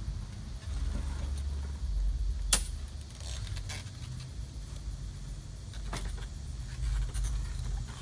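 A gas push lawn mower being wheeled over grass and handled, its metal parts rattling with a sharp clack about two and a half seconds in and a lighter knock around six seconds, over a low steady rumble.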